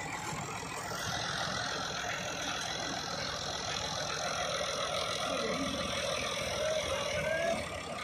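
Massey Ferguson 7250 DI tractor's diesel engine running steadily while it powers the hydraulic tipper of a trailer unloading soil.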